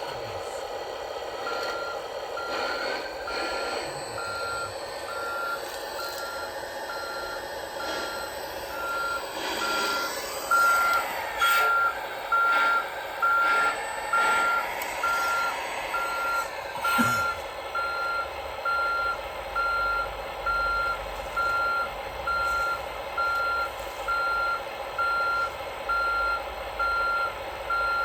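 Reversing alarm from an RC model construction vehicle's sound module, beeping steadily about one and a half times a second over a steady simulated engine hum. A single sharp knock comes a little past halfway.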